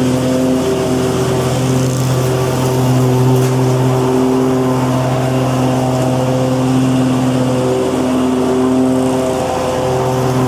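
Lawn mower engine running steadily at a constant pitch, with small swells and dips in level.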